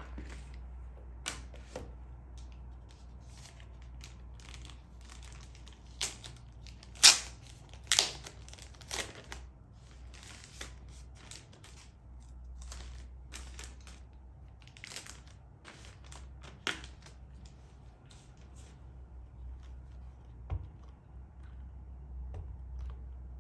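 Packaging being handled and unpacked: irregular crinkling, tearing and sharp clicks and knocks, loudest twice around seven and eight seconds in, over a steady low hum.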